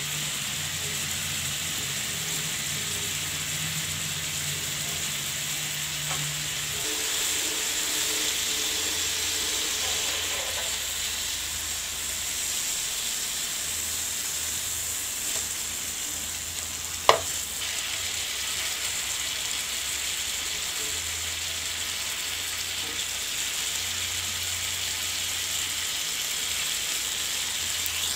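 Yogurt-marinated chicken pieces sizzling steadily as they fry in oil in a pan, with one sharp click about two-thirds of the way through.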